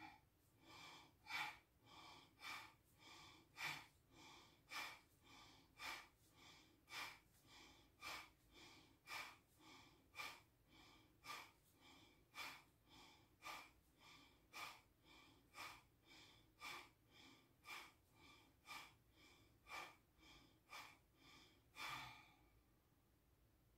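A woman's quick, forceful breathing through the nose in bhastrika (bellows breath) yoga practice: a faint, even train of sharp breaths, about two a second, stopping near the end.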